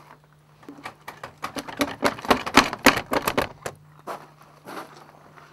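A rapid flurry of clattering knocks, as of wooden cage bars being shaken and rattled. It builds to a dense, loud burst in the middle and thins to scattered knocks near the end, over a faint steady low hum.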